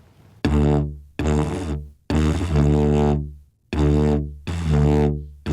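Didgeridoo drone played in short separate starts, about five in a row, each beginning sharply and landing straight on the same low note; the third is held a little longer. This is the drone attack exercise, in which the drone is restarted cleanly on the note without searching for it.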